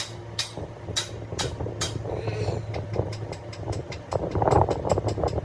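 Rebuilt heavy diesel engine running: a steady low hum with sharp regular ticks that come faster from about three seconds in.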